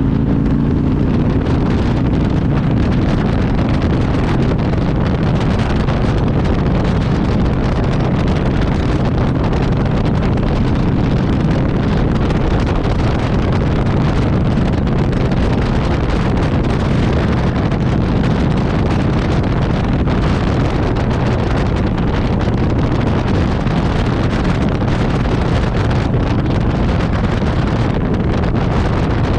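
Steady, loud vehicle running noise with wind buffeting the microphone. The uploader attributes the noise to the transmission.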